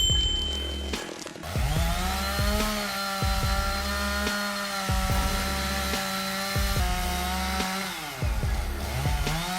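Two-stroke chainsaw revving up to full throttle and held at a steady high whine for about six seconds. It drops off, then revs up again near the end. Under it runs background music with a heavy low beat, and a sharp hit sounds right at the start.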